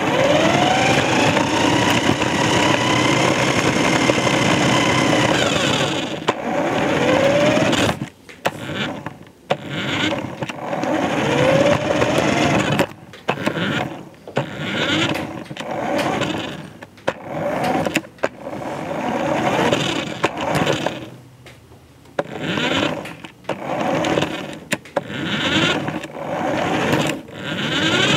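Remote-control car's small motor whining as it drives, rising in pitch as it speeds up and holding for a few seconds. It then runs in repeated short bursts of a second or two, stopping and starting with the throttle.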